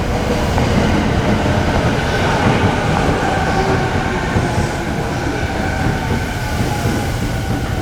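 Electric commuter train running past on the Sobu Line tracks: a loud, steady rail rumble with a faint steady high tone above it.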